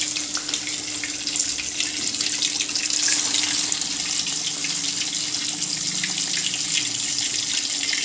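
Prawn-masala-coated egg balls deep-frying in well-heated oil in an aluminium kadai: a steady, dense sizzle with fine crackling and popping bubbles, swelling briefly about three seconds in.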